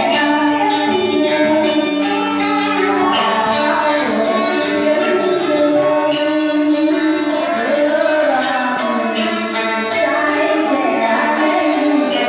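Music: a song with a singing voice over instrumental accompaniment, playing loudly without a break.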